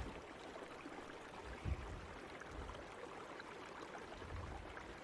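Quiet, steady background hiss with a soft low thump about a second and a half in.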